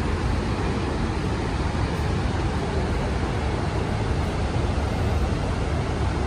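Steady rumble and hiss of a moving vehicle, even throughout, with no distinct knocks or changes.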